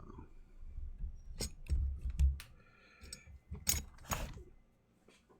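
Workbench handling noise: several sharp clicks and metallic clinks with a few low bumps as tools and parts are picked up and set down.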